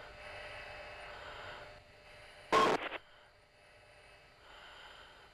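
A fighter pilot's breathing picked up by the oxygen-mask microphone on the cockpit intercom, in slow hissing breaths, with one short loud burst of noise about two and a half seconds in.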